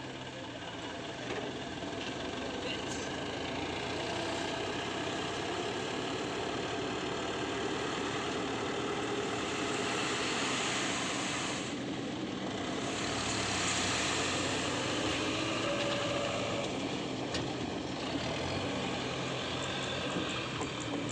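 Heavy engine running steadily, a low drone with a broad noisy rush over it.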